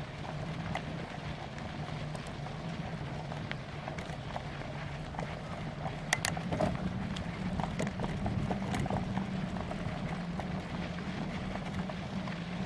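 Bicycle riding along a rough trail: steady tyre and wind noise with scattered rattles and knocks over bumps, and a sharper clatter about six seconds in.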